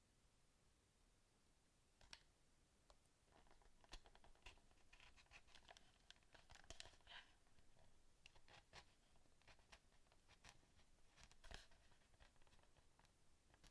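Faint clicks and scraping of hard plastic parts being handled and worked on, a PS4 controller under restoration.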